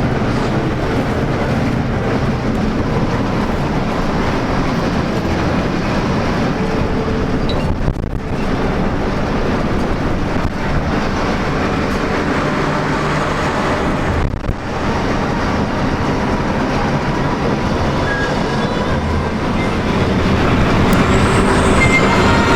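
Large intercity bus on the move: a steady engine drone and road rumble, dipping briefly twice.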